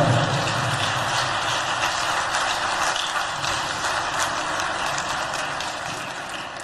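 Audience applauding, a dense patter of many hands that slowly dies away.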